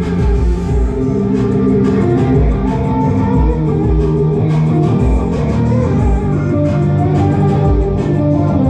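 Electric guitar played loud through an amplifier: low, heavy riffs and chords ringing on continuously, with regular deep pulses underneath.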